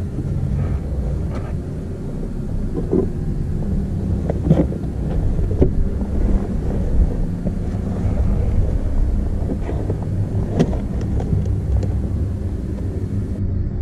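Wind buffeting an action-camera microphone as a steady low rumble, with a few sharp clicks and knocks from gloved hands and boots on granite blocks while scrambling down a rocky ridge.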